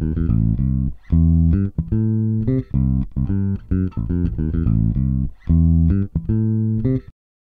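Instrumental closing theme music with a rhythmic run of plucked notes, cutting off abruptly near the end.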